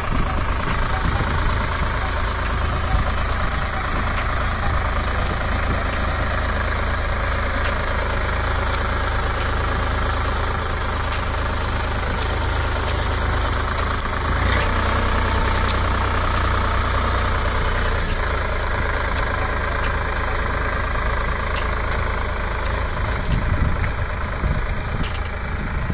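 Solis 5015 four-wheel-drive tractor's diesel engine running steadily under load as it pulls a plough along the field border, a little louder for a few seconds midway.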